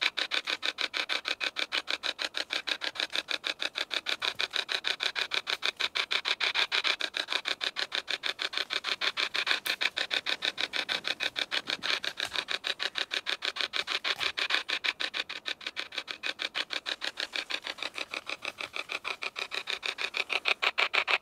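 Hack Shack spirit box sweeping through radio noise: an unbroken, even chatter of short choppy bursts of static, many a second.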